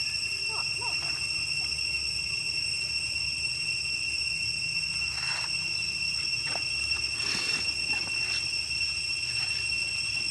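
Insects droning steadily in a high, even pitch, with a few faint short clicks or rustles in the second half.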